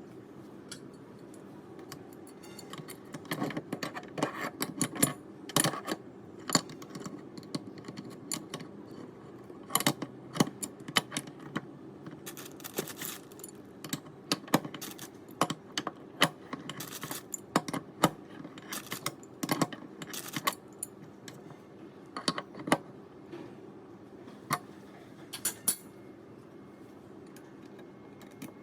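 Irregular metallic clinks and clicks of tap parts and tools being handled during a tap washer repair, some ringing briefly, over a steady low background hum.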